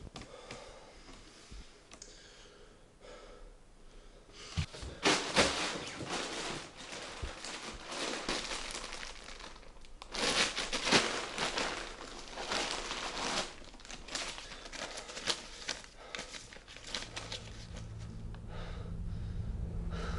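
Plastic carrier bag rustling and crinkling as it is handled and opened, in irregular bursts from about four seconds in, loudest around the middle. A low steady hum comes in near the end.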